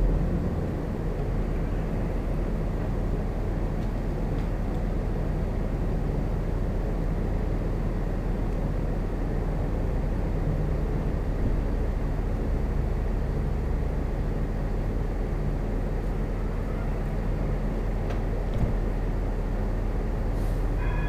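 Bombardier Talent diesel multiple unit standing at the platform with its diesel engines idling: a steady low rumble.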